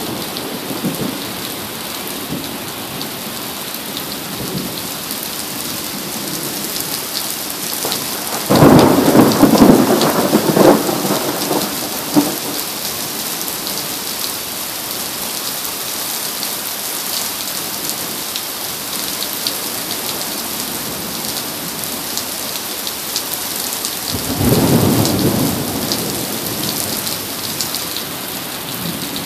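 Heavy rain pouring steadily on pavement. A sudden loud clap of thunder comes about a third of the way in and rumbles on for a few seconds, and a second, weaker roll of thunder comes near the end.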